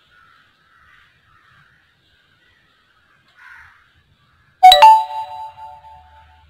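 A sudden loud two-tone chime, one note and then a second just after, about four and a half seconds in, fading out over a second and a half.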